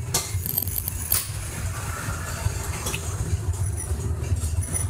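A few light clicks and knocks as a cutting disc and a hand-held angle grinder are handled, over a steady low rumble.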